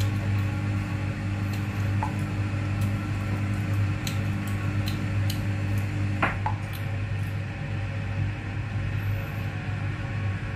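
A steady low electrical hum from a kitchen appliance, with a few faint short clicks scattered through it and one sharper click about six seconds in.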